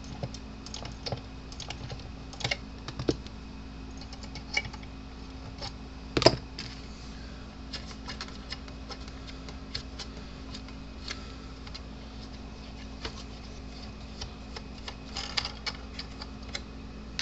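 Scattered light clicks and taps of small parts being handled by hand, with one sharper click about six seconds in and a short cluster near the end, over a steady low hum.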